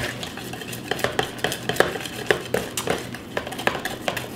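Wet fruitcake batter being stirred by hand in a mixing bowl, the utensil clicking and scraping against the bowl at an irregular pace of about two or three knocks a second.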